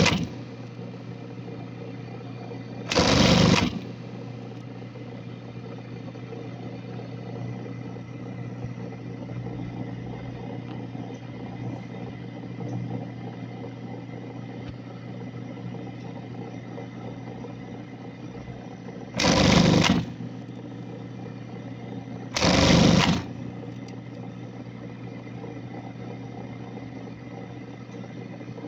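Brother industrial sewing machine: its motor hums steadily between stitching, with three short bursts of fast stitching of about a second each, one about three seconds in and two close together later on.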